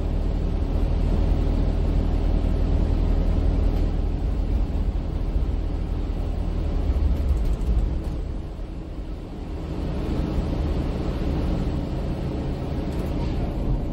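Interior ride noise of a MAN Lion's City 12C EfficientHybrid city bus under way: the diesel engine's low hum and rolling road noise heard from inside the cabin. It eases off about eight seconds in, then picks up again a couple of seconds later.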